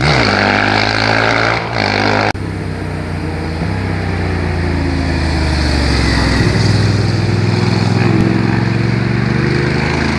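Motorcycle engines passing on a winding road. After a sudden cut about two seconds in, one motorcycle rides by close, its engine note rising and dropping with throttle and gear changes.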